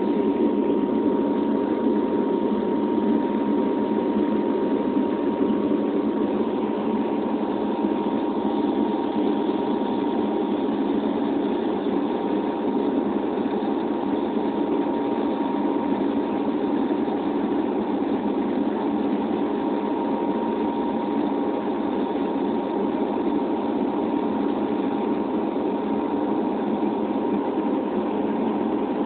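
Steady drone of a Dash 8 turboprop airliner's engines and propellers in cruise, heard inside the passenger cabin, with a thin steady whine running through it.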